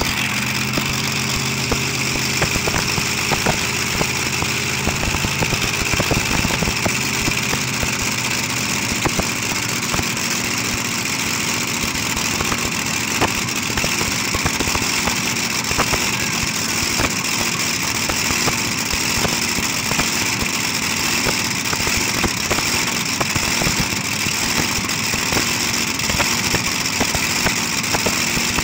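Twin Keith Black V8 engines of a modified pulling tractor idling, loud and steady, with an uneven run of frequent pops.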